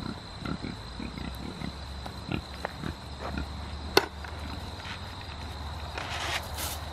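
Pigs grunting in a string of short, low grunts as they come to be fed, with one sharp click about four seconds in. Near the end comes a brief rustling rush as feed is thrown out of a bucket, over a steady high chirring of crickets.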